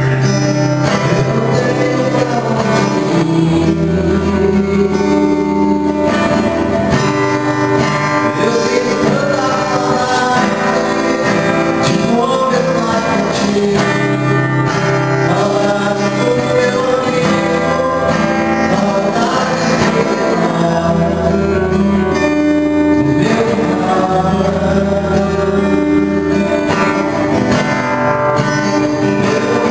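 A live gospel song: a man singing into a microphone over a strummed acoustic guitar, with held bass notes underneath that change every few seconds.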